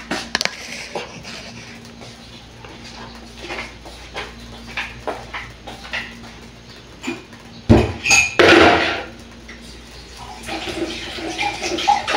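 Dishes and utensils clinking and clattering at a kitchen sink as they are handled and washed. A louder rush of noise lasts about a second, roughly eight seconds in.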